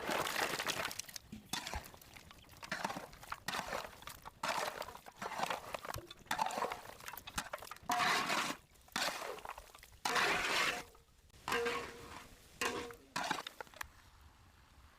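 Kitchenware clinking and scraping in a run of short, sudden bursts with brief gaps between them.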